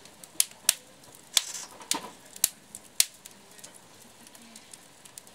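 Wood campfire crackling: irregular sharp pops, the loudest and most frequent in the first three seconds, then lighter, scattered ticks.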